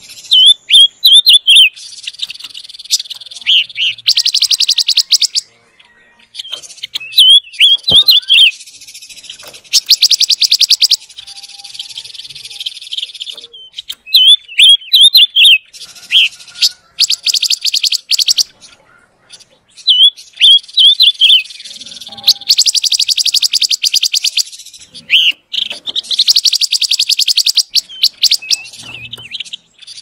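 Silver-eared mesia singing: a quick run of short, up-and-down whistled notes, then a fast, dry rattling trill. The phrase repeats about every six seconds.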